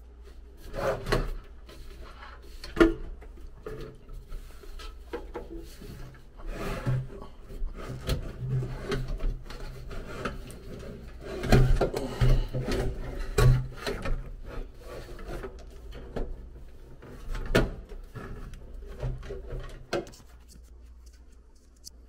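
Galvanized sheet-metal blower housing of a Goodman air handler being pushed and wrestled back into its cabinet: irregular metal-on-metal scraping and rubbing, with several sharper knocks, loudest around the middle.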